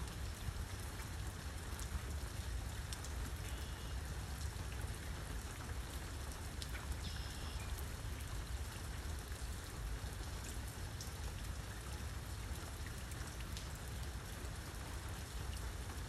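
Steady rain falling, with many small drops ticking close by over a low rumble.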